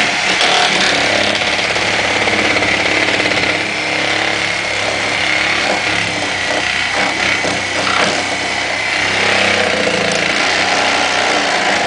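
A Sawzall reciprocating saw running continuously, its blade slipped under a cabinet support and cutting through the old screws that hold it down.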